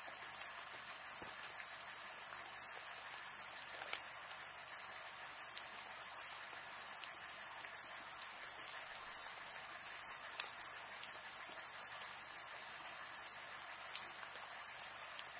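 Night insects chirping: very high-pitched pulses repeating evenly, about one and a half a second, over a steady high-pitched insect trill.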